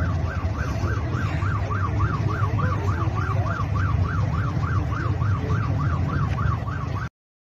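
Emergency vehicle siren on a fast yelp, sweeping up and down about three times a second over a steady low rumble. It cuts off abruptly near the end.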